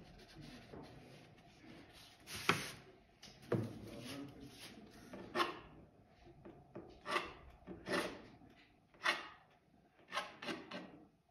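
A paintbrush scratching and scrubbing across textured watercolor paper in short strokes, about ten of them, starting about two seconds in and coming faster near the end, as dry, bristly marks for bushes and branches are laid down.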